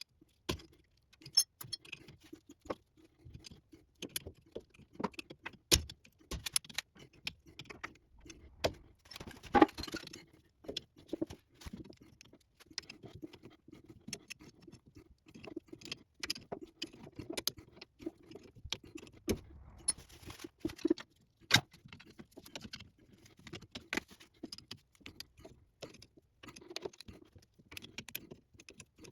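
Irregular metallic clicks, clinks and light clatter of hand tools and parts being handled while swapping a sway bar bushing on a truck's front suspension, with a louder rattle of clinks about ten seconds in.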